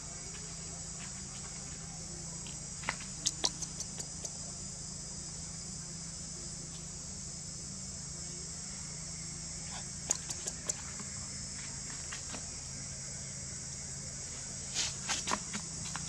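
Steady high-pitched insect chorus, with a low hum beneath it and a few sharp clicks or taps scattered through, bunched together near the end.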